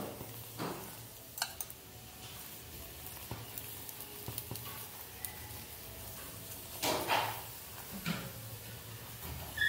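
A steel spoon scraping and rubbing over a puran poli as it roasts in ghee on a flat griddle, with a faint frying sizzle beneath. There are a couple of louder scrapes or knocks about seven and eight seconds in.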